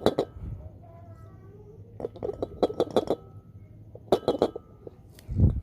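Hard metal clinks and knocks in three quick clusters as a fridge compressor is handled, with one heavy low thump near the end.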